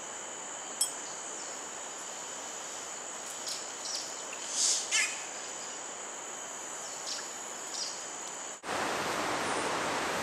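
Tropical forest ambience: a steady high insect drone with a few short bird calls scattered through it, the loudest a pair of calls about halfway. Near the end it cuts to a louder, even rushing hiss.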